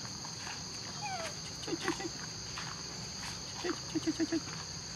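Steady high-pitched drone of insects. A couple of short falling calls and two quick series of low, rapid notes sound over it, about two seconds and four seconds in.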